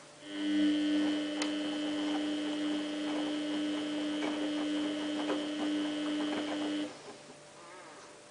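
Samsung WF8804RPA washing machine giving a steady electric hum as its water valve or pump runs, with faint crackling and a few clicks over it; the hum starts just after the beginning and cuts off about seven seconds in.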